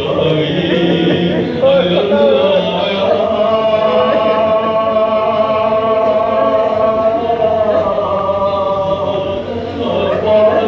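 A man chanting a noha, an Urdu mourning lament, into a microphone. His voice moves through short phrases, then holds one long drawn-out note in the middle before the phrasing breaks up again near the end.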